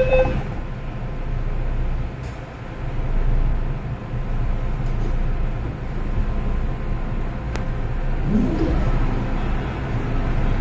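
Interior of a Hong Kong MTR M-Train car as it pulls away from a station: a steady low rumble, with the door-closing chime just ending at the start. About eight seconds in, a rising traction-motor whine comes in as the train gets under way.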